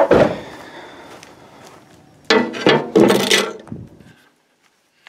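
Handling noise from a handheld camera being moved about: a thump at the start that dies away, light scuffing, then two loud bouts of rustling and scraping about halfway through. It cuts to near silence near the end.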